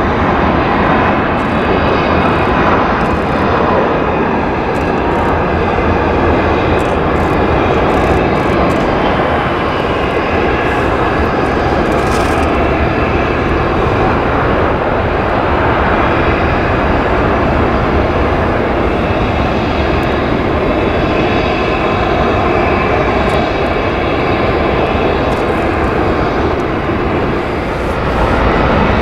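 Loud, steady jet-engine noise of an Airbus A319 airliner landing and rolling out on the runway, with a faint engine whine over it. Near the end the sound drops briefly and changes abruptly.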